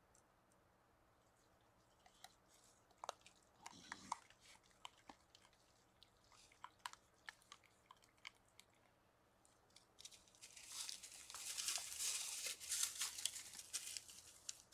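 Scattered crunching clicks from a deer and raccoons feeding on the forest floor. About ten seconds in comes a few seconds of louder, dense rustling and scrabbling in dry leaves as the animals scatter and a raccoon scrambles up a tree trunk.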